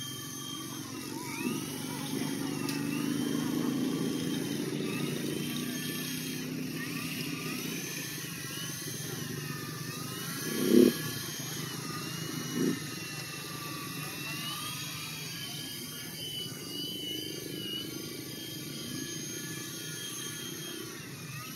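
Small electric motors of a toy RC helicopter whining as it flies, their pitch rising and falling again and again, over a steady low rumble. Two short low bursts stand out near the middle, the first of them the loudest sound.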